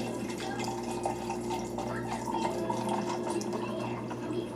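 Drink being poured into a cup, liquid splashing and trickling, over a steady low hum.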